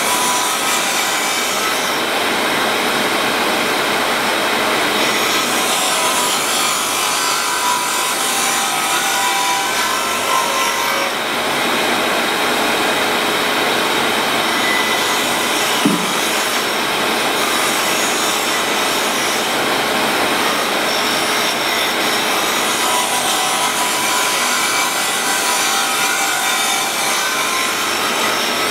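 Cup grinding wheel in a machine spindle grinding the floor of the rotor pocket in a cast automatic-transmission bell housing: a steady, even hiss of abrasive on metal with the spindle running, as the pocket is taken down to depth in hundredths of a millimetre.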